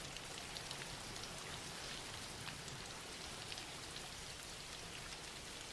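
Soft rain falling steadily, a faint even patter of drops.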